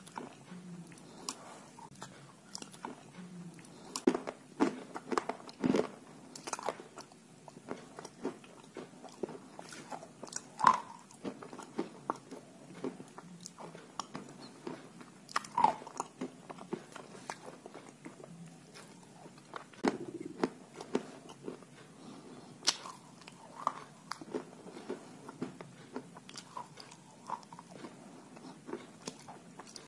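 A person biting and chewing dry white chalk pieces: irregular crisp crunches with quieter chewing between them.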